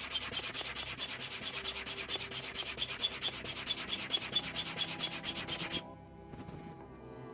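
Double-action hand pump being worked to inflate a kayak: a rapid, even rhythm of rasping air strokes that stops shortly before the end.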